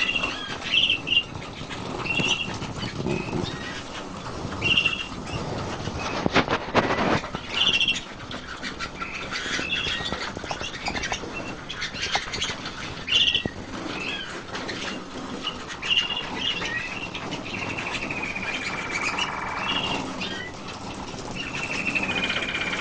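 Pet birds chirping, repeating short calls over and over, with a burst of rustling about six to eight seconds in and a longer, steadier call near the end.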